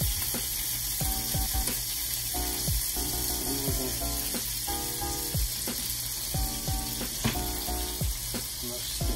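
Beef steak sizzling on a hot cast-iron grill pan, a steady hiss, with background music playing under it.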